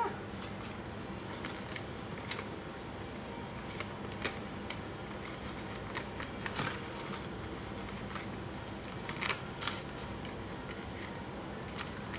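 Scattered light clicks and crinkles of a clear plastic carrier sheet being handled and pressed around a tumbler, about ten in all, over a steady low hum.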